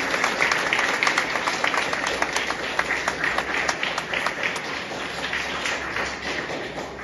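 A group of people clapping their hands in applause, the clapping gradually dying down toward the end.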